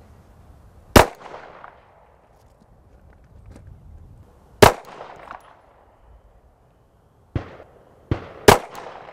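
Glock pistol shots fired slowly one at a time: three loud cracks about three and a half seconds apart, each followed by a short echo. There are two fainter sharp cracks shortly before the last loud one.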